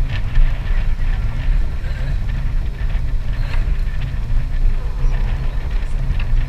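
Wind buffeting the microphone: a loud, steady, low rumble, with a few faint clicks from handling.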